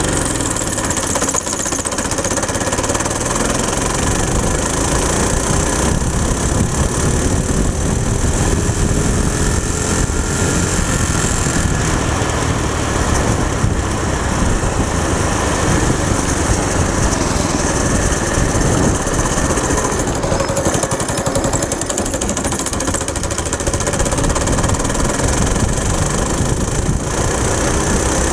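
Go-kart's Predator single-cylinder four-stroke engine at full throttle, accelerating from a standstill: its pitch rises over roughly the first ten seconds, then holds steady near top speed.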